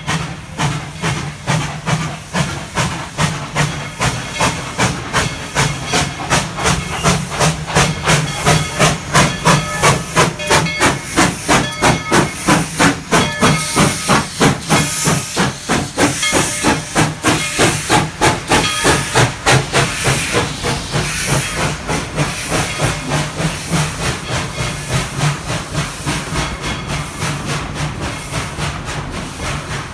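Steam locomotive chuffing in a steady, even rhythm with steam hissing as it pulls a passenger train past, loudest about a third of the way in and gradually fading as the coaches go by.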